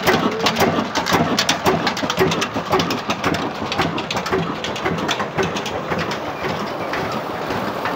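A 33-year-old stationary engine and its flat-belt drive to a well pump clatter in a quick, uneven rhythm of sharp knocks. After about five seconds a steady rush of water pouring from the pump's outlet pipe into a channel takes over.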